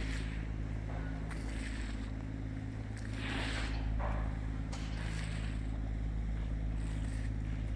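Diesel engines of a moored car ferry running at a steady idle: a low, even drone made of several steady tones. Short hissing swells come and go every second or two.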